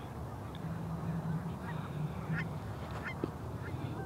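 Geese honking: several short calls scattered through a few seconds, over a low steady hum.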